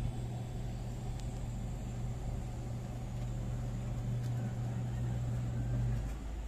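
Small electric blower fan on a modified charcoal stove running with a steady low hum, cutting off about six seconds in.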